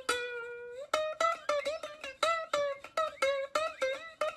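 Background music: a plucked melody of quick, short notes, about four or five a second.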